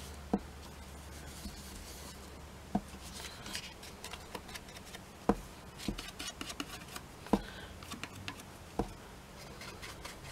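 Foam ink blending tool rubbing and dabbing Distress Ink onto the edges of a cardstock piece. There are sharp taps about every couple of seconds, five of them standing out.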